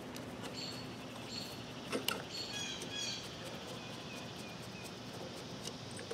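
Birds chirping in the background over a low steady hum, with one small click about two seconds in.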